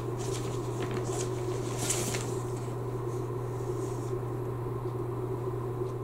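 Steady low electrical hum of room tone, with a few faint rustles and clicks in the first two seconds as a person moves about.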